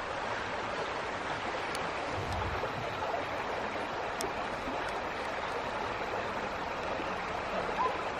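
Big Sur River water flowing, a steady, even rush.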